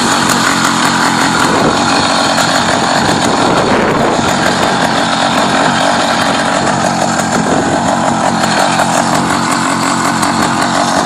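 Motorized bicycle's small engine running steadily under way, a fast, buzzy engine note.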